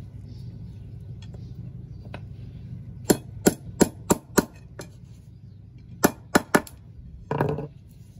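Small hammer striking the end of a 6 mm aluminium tube resting on a concrete slab, flattening (crimping) it. There is a run of five sharp blows about three a second, a pause, then three more, followed by a short, rougher noise near the end. A low steady hum sits underneath.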